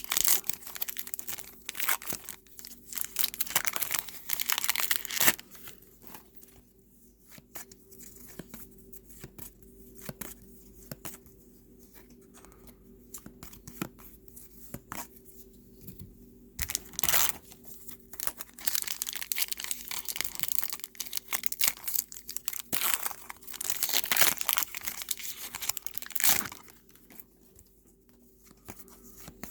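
Trading card pack wrappers being torn open and crinkled in bursts, with quieter stretches of cards being handled in between.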